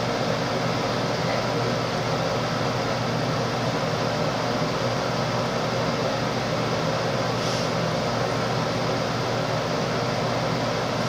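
Steady whir of a bathroom exhaust fan, an even noise with a low hum that does not change.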